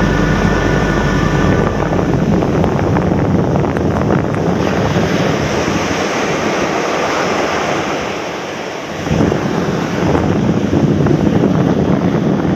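Surf breaking on a sandy beach, with a strong wind buffeting the microphone.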